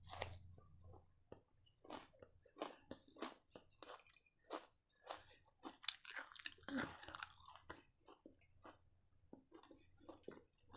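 Close-up chewing of crisp raw onion slices: sharp crunches in quick, irregular succession, about two a second, with a busier stretch about six seconds in.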